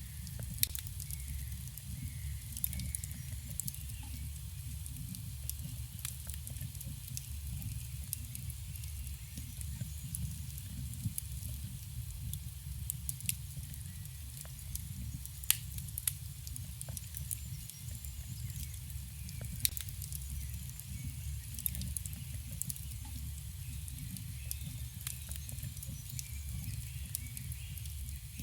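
Campfire crackling: irregular small snaps and a few sharp, louder pops over a steady low rumble of burning wood.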